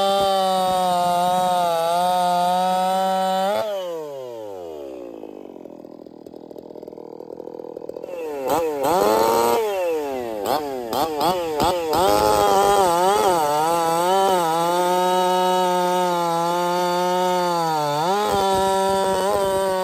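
Echo two-stroke chainsaw with a hand-ground .325 chain cutting through a log at full throttle. About four seconds in the revs fall away to idle. Near eight seconds it is blipped up several times, then it runs at steady high revs through a second cut, dipping briefly near the end before climbing again.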